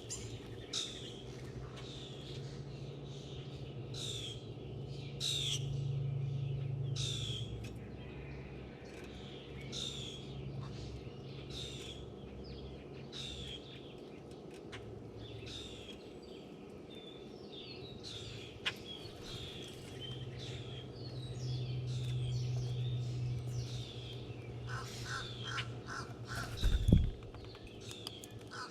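Wild birds calling: short, high chirps that fall in pitch, about one a second, with a quick run of lower crow caws near the end. A single loud thump comes just after the caws.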